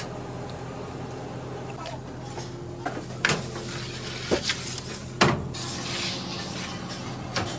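A few sharp knocks and scrapes of a round metal baking tray and an oven peel against the floor of a wood-fired oven, the loudest just past the middle, over a steady low hum.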